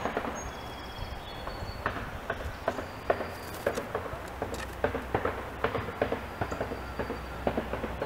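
Red-bellied woodpecker pecking at the open wooden feeder box: irregular sharp wooden taps and knocks, a few a second, starting about two seconds in.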